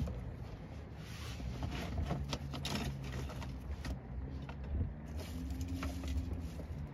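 Hands handling a small plastic worm box and fishing tackle: scattered light clicks and rustles over a steady low rumble and faint hum.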